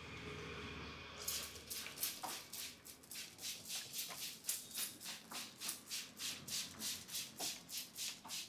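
A barber's hands rubbing briskly in a massage, starting about a second in. Each stroke is a short hissing swish, about three a second in a steady rhythm.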